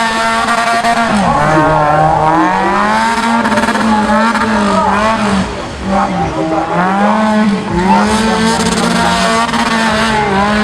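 Off-road 4x4 competition vehicle's engine running hard, its revs repeatedly dropping and climbing as the throttle is worked, with short dips about six and eight seconds in.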